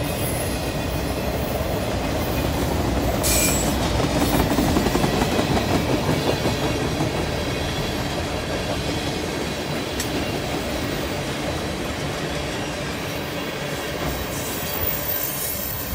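Freight cars (autoracks, tank cars and a covered hopper) rolling past on the rails, their wheels clattering steadily with a couple of brief high-pitched wheel squeals. The noise eases off gradually as the end of the train moves away.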